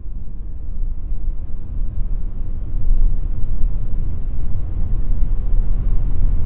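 A car's low, steady rumble that grows louder about three seconds in.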